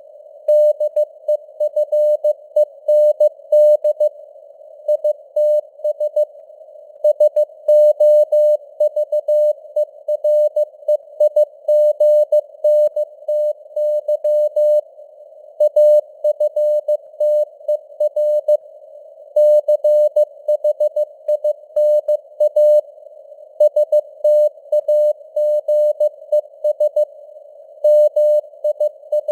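Morse code sent at 15 words per minute: a single mid-pitched CW tone keyed on and off in dots and dashes, with simulated radio band noise hissing around it and the signal strength fading up and down (QSB).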